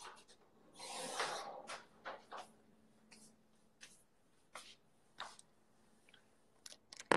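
Handling noise from a phone being moved about in the hand: short rustles and light taps, with a longer rustle about a second in.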